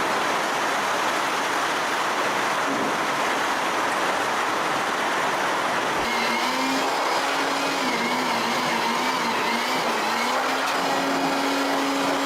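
Steady mechanical hiss of a running power tool or motor. About halfway through, a humming motor tone joins it and wavers slightly in pitch.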